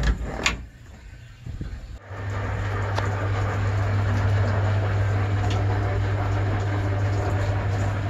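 A knock with a short squeak of handling near the start. About two seconds in, the 1960 Constructa K5 washing machine starts up with a steady mains hum and an even rushing noise that carries on.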